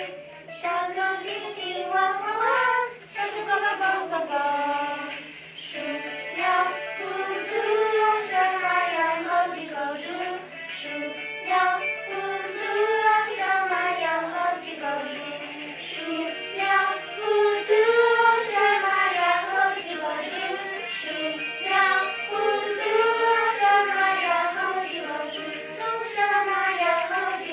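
A group of children singing a song together, one melody line that rises and falls in held notes.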